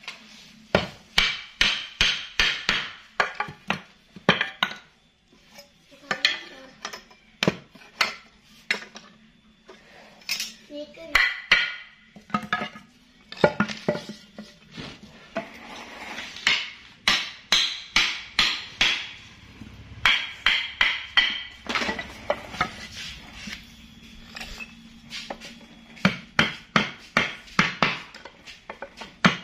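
Hammer striking metal with a clinking ring, in quick runs of about three or four blows a second, with short pauses between the runs.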